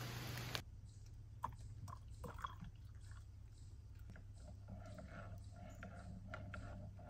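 Rain pattering on a puddle, cut off abruptly about half a second in. Then a few faint clicks of handling, and from the middle on, the soft steady trickle of water poured from a small electric kettle into a mug.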